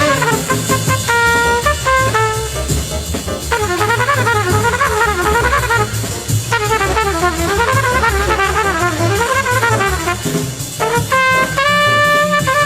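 Background music: upbeat jazzy tune with brass horns and a drum kit, with held horn notes and wavering melodic runs over a steady beat.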